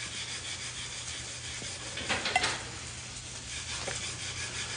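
Stick-welding arc crackling steadily, over a steady low hum. A brief louder sound comes about two seconds in.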